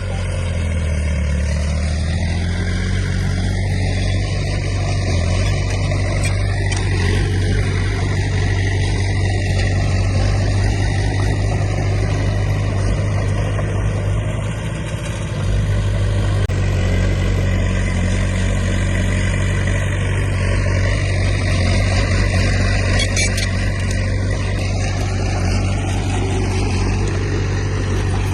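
Heavy diesel engine of earthmoving machinery running steadily under load, with a low hum; the low part of the sound changes about halfway through.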